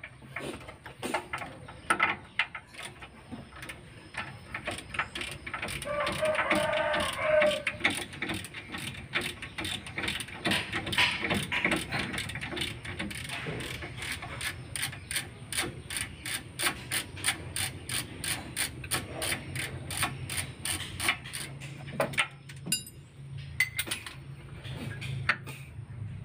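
Ratchet wrench clicking in quick even runs, about four clicks a second, as the bolts of a Daihatsu Gran Max's left engine mount are turned out. About six seconds in there is a short, louder pitched sound.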